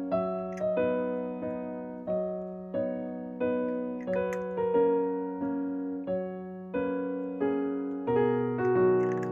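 Background music: a gentle solo piano piece, notes struck about every half second to second and left to ring, over a held low note.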